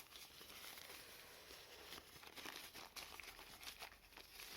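Faint rustling and crinkling of packaging being handled as accessories are taken out of a camera box, with scattered light clicks.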